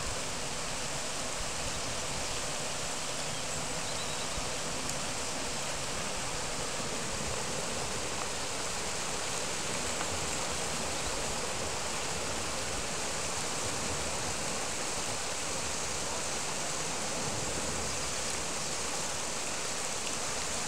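Steady rush of river water pouring over the edge of a low concrete weir.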